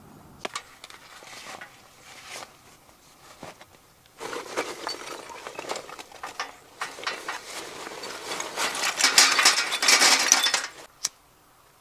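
Charcoal poured from a bag into a stainless steel Petromax Atago firepit: a clinking clatter of pieces hitting the metal bowl that starts about four seconds in, grows loudest near the end and stops abruptly, followed by a single sharp click.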